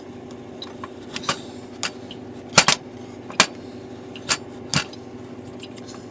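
A knife chipping and stabbing at a block of frozen slime: a series of sharp, irregular knocks and clicks, about seven in all, over a steady low hum.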